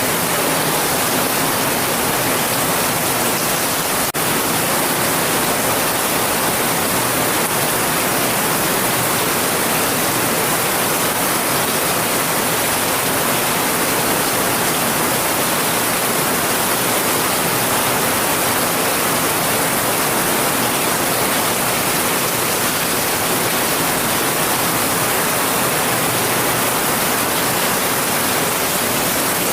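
Heavy rain falling steadily as a dense, even hiss, with a momentary dip about four seconds in.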